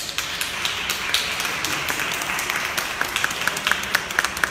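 Audience applauding: a dense patter of hand claps that starts all at once, with a few louder single claps standing out in the second half.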